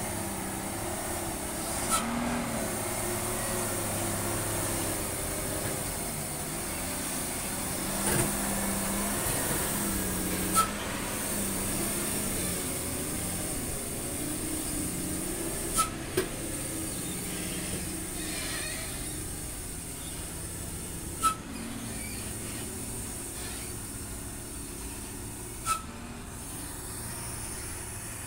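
Loaded Hino dump truck's diesel engine running at low speed as the truck crawls through a narrow cutting. About six short sharp clicks sound several seconds apart.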